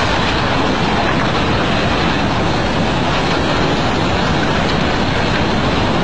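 Tsunami floodwater surging inland: a loud, steady rush of churning water.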